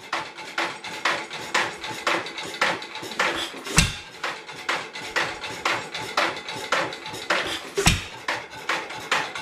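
1920s 2-horsepower Headless Witte hit-and-miss engine running: a steady clicking about twice a second as the flywheels coast, broken about every four seconds by a heavy low bang when it takes a firing stroke, twice in the span.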